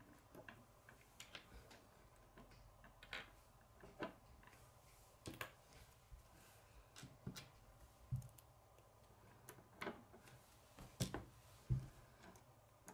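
Plastic K'nex rods and connectors clicking and snapping together as they are handled, in faint, irregular clicks, with a couple of duller knocks.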